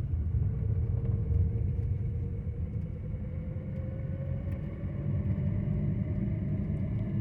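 Car driving, heard from inside the cabin: a steady low rumble of tyres and engine, with a faint engine tone that climbs slowly in pitch as the car picks up speed.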